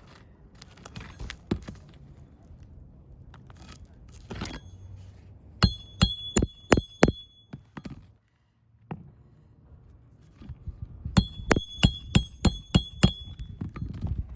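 Hammer driving roofing nails into a replaced asphalt shingle. There are two quick runs of metallic strikes, each hit ringing: about six, then after a pause about eight more.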